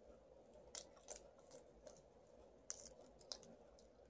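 Crisp, pale leafy-vegetable leaves torn apart by hand, giving about half a dozen short, sharp crackles and snaps, loudest just after one second and near three seconds in.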